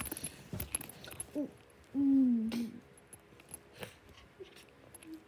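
A child's voice making a short, low, wordless hoot-like "ooh" about two seconds in, falling slightly in pitch, with a smaller vocal sound just before it. Light clicks and rustles of the phone being handled run around it.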